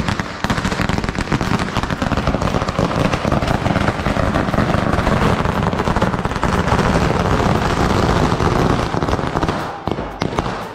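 A string of firecrackers (a ladi) going off in rapid bangs one after another with no break, stopping about ten seconds in.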